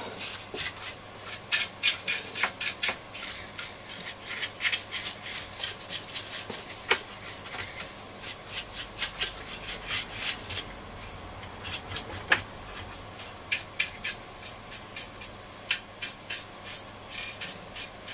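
A brush scrubbing over a transistor radio's chassis in quick, scratchy strokes, several a second, with a few brief pauses.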